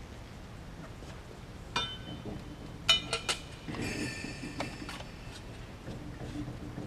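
Metal tools and engine parts clinking as the rear of a Pratt & Whitney 545A turbofan is taken apart by hand: a clink about two seconds in, a quick run of three about a second later, then a short metallic ringing, each ringing briefly.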